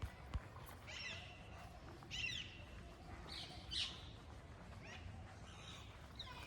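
A bird calling: short, sharp chirps repeated about once a second.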